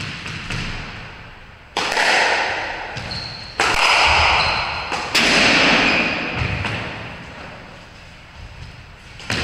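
Squash rally: the rubber ball struck by rackets and smacking the court walls, with three loud hits about a second and a half apart, each ringing on in the hard-walled court, and lighter knocks between. A brief shoe squeak on the wooden floor comes in the middle.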